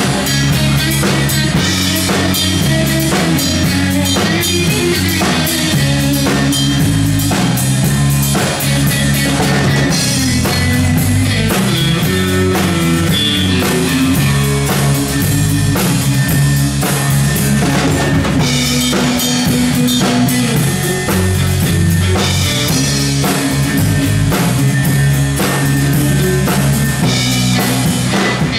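Live rock band playing loudly: a steady beat on a drum kit under electric and acoustic guitars, with a moving low bass line.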